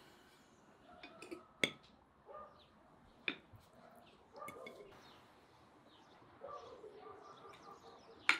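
Metal fork clinking against a clay plate a few times as food is scooped onto bread: short, sharp clicks, the loudest near the end.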